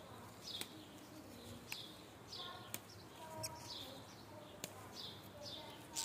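Small birds chirping in short, repeated, falling calls, mixed with lower pitched notes and sharp ticks about every second.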